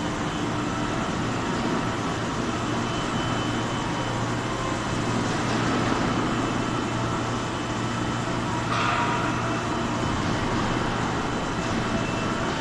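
Copper tube welding and corrugation line running steadily: a constant machine hum with a few steady whining tones over a dense mechanical din, and a short hiss about nine seconds in.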